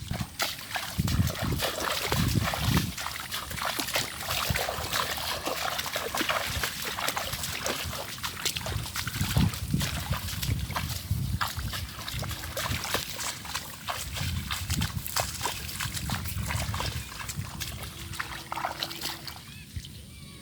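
Water splashing and sloshing in shallow water, with many irregular clicks and knocks and low thuds, easing off near the end.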